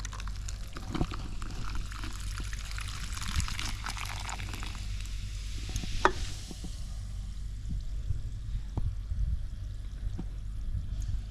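Club soda poured from a can into a cup of crushed ginger, green chilli and salt, fizzing up hard with a crackling hiss that dies down after about five seconds. A single sharp tap about six seconds in.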